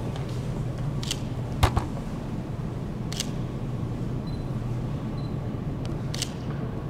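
A few sharp clicks over a low steady hum, with one louder knock about a second and a half in.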